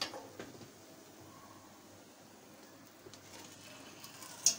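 Quiet kitchen room tone with a couple of soft knocks at the start and one sharp click near the end.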